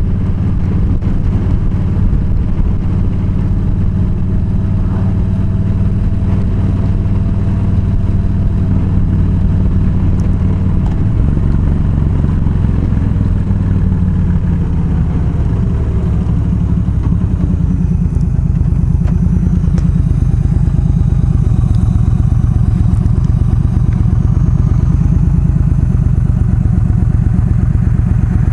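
Yamaha V Star 1300 V-twin engine running on the road, a steady low rumble under wind noise. In the second half the wind noise drops away as the bike slows, leaving the engine's low, even beat.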